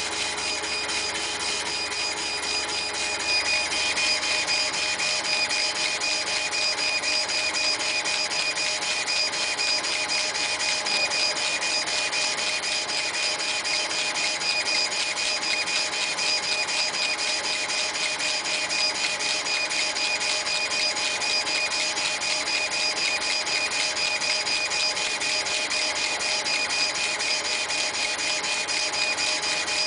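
CNC laser engraving machine with a wheel-type rotary attachment running, its drive motors holding a steady multi-tone whine over a fast, even mechanical chatter; it gets a little louder a few seconds in.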